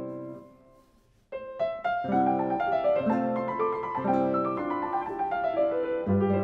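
Upright piano playing a classical passage. The previous notes die away into a pause of about a second, then the piano comes back in with a busy run of notes over chords.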